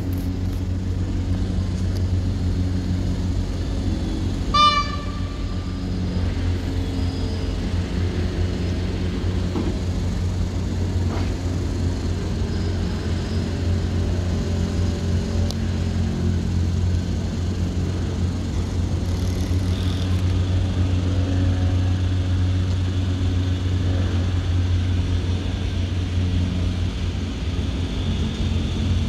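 A single short, high horn toot from an approaching EN57 electric multiple unit about five seconds in, over a steady low hum.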